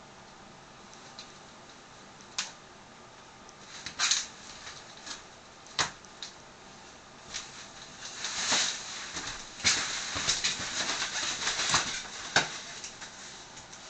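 A Chartreux cat climbing a fabric shower curtain: the curtain rustles and its claws catch the cloth with sharp clicks, a few scattered ones at first, then a dense run of rustles and clicks about eight to twelve seconds in as it pulls itself up toward the rod.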